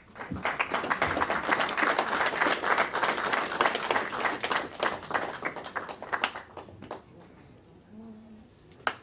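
Audience clapping, starting right away and dying out about six or seven seconds in. A single sharp knock comes near the end.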